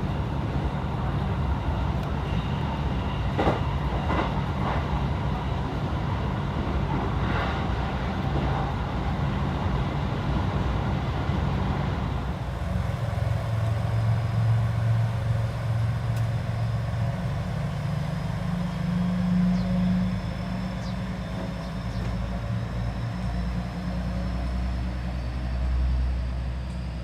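Steady low rumble of a moving vehicle, changing in character about twelve seconds in.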